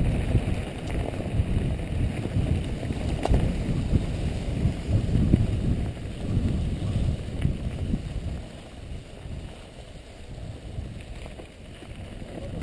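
Mountain bike rolling fast downhill over a leaf-covered, rocky trail: wind buffets the action camera's microphone over the rumble of the tyres, with a few sharp knocks from the bike. The rumble eases after about eight seconds.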